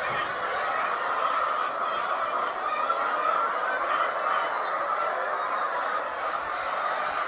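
A large flock of caged laying hens clucking and calling together in a steady, continuous din.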